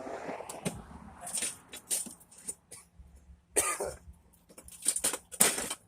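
Hands working inside scrapped TV sets: irregular clicks and scrapes, with a few louder rustling bursts a little past halfway and near the end.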